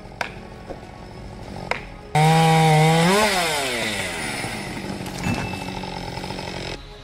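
Chainsaw engine: a quieter running hum with a few sharp knocks, then about two seconds in it comes in suddenly and loud at full throttle, rises briefly in pitch and winds down as the throttle is let off. The sound cuts off abruptly near the end.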